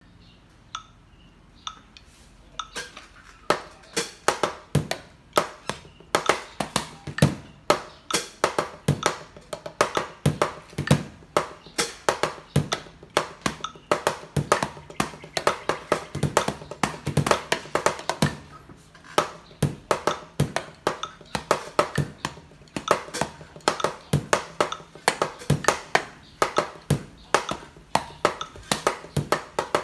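Drumsticks playing a steady, slow beat on rubber drum practice pads, with a bass drum pedal striking a kick pad. The hits start a few seconds in and keep an even rhythm of about three to four strokes a second.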